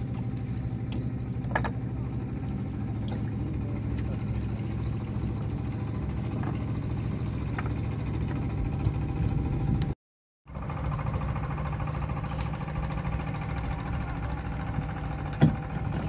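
A boat engine running steadily with a low, even hum. A few light knocks stand out, the sharpest near the end, and the sound cuts out for a split second about ten seconds in.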